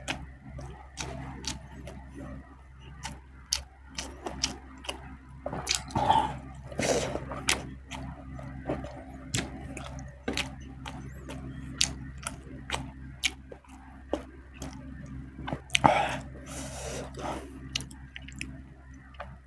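A man chewing and smacking his lips while eating, with frequent sharp wet mouth clicks at irregular intervals and a few short mouth noises. A faint steady low hum runs underneath.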